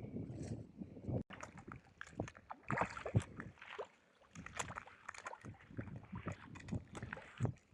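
Irregular splashing and sloshing of water.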